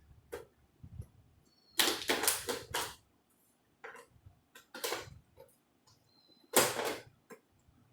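Plastic clicking and scraping as a plastic credit card is worked into the seam of a Dell PC's case to pry its clips open. The clicks come irregularly, with a dense run of them about two seconds in and another loud one near the end.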